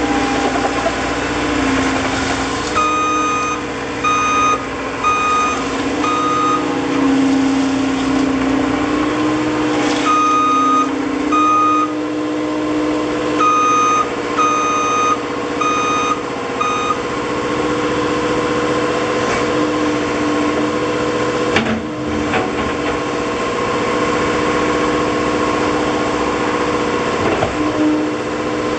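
Volvo MCT125C tracked skid steer loader's diesel engine running steadily, with its backup alarm beeping in three runs of a few beeps each during the first half as the machine reverses.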